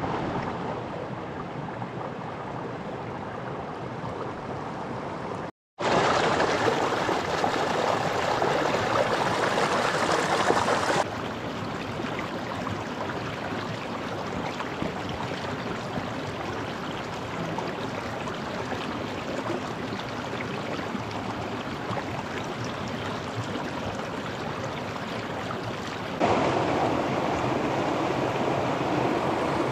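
A river rushing steadily. The sound is broken by a brief dropout about five and a half seconds in, and it jumps louder or quieter where the shots change, around eleven seconds and near twenty-six seconds.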